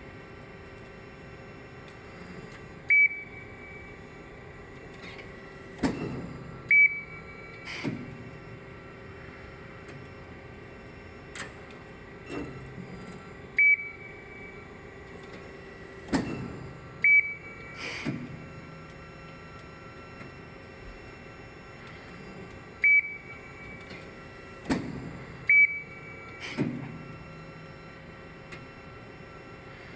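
Amada RG-50 hydraulic CNC press brake running through its cycles: a steady hum from the hydraulic system, broken by short high beeps and sharp clunks in a pattern that repeats about every ten seconds.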